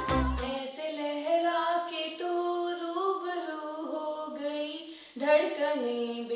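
A woman singing a slow Hindi song unaccompanied, with long held, gliding notes and a short break about five seconds in. The beat of intro music cuts off just after the start.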